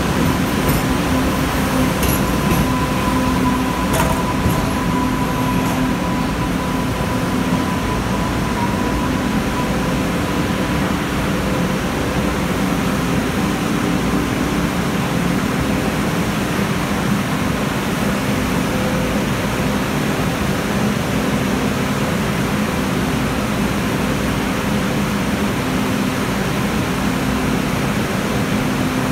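MBTA Green Line light-rail train at the platform, a steady hum and rumble. A faint steady whine runs for roughly the first ten seconds, with a couple of sharp clicks in the first few seconds.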